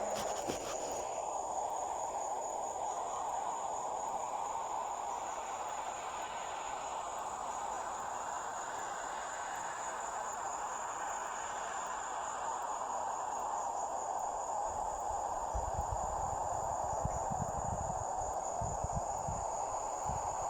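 Crickets trilling in a steady, unbroken high tone over a constant background hiss. Low irregular rumbles come in near the end.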